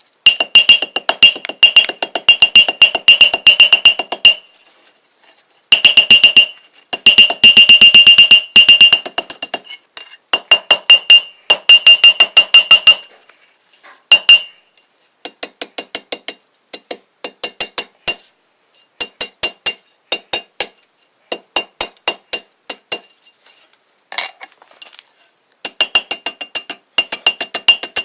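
Hand hammer striking mild steel round stock on an anvil in quick runs of blows, about five a second, each blow ringing with a high metallic tone. The runs are broken by short pauses as the work is turned or repositioned.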